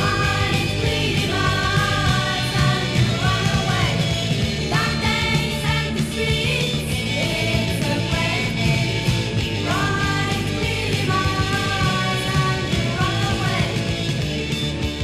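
1980s noise-pop rock song: a woman sings over electric guitar, bass and drums, and the same vocal phrase comes round twice.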